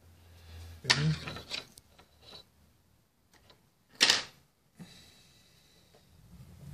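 Close handling noise from hands working cord and tape on a fishing rod's wrapped handle: two short sharp rustles, about a second in and about four seconds in, with a few faint clicks between.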